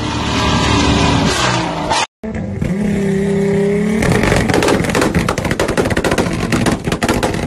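Ford Mustang GT's V8 running at high revs on a chassis dyno, its exhaust spitting flames. After a cut, another car's engine holds a steady high rev for about two seconds, then its exhaust fires a fast string of loud bangs and pops, like machine-gun fire.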